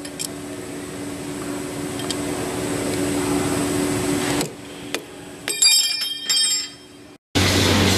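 A steady machine hum, then a quick run of sharp metal clinks that ring briefly as a steel rod in a lathe chuck is knocked with a mallet. Near the end the sound cuts off abruptly, and a louder steady machine noise follows.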